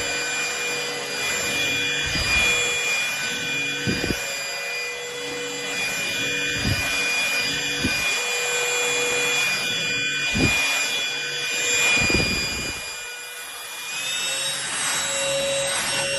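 Cordless stick vacuum cleaner running, its motor giving a steady whine over rushing airflow, with occasional low thumps and rubbing as it is pushed over the floor. Near the end the whine steps up in pitch as the motor speeds up.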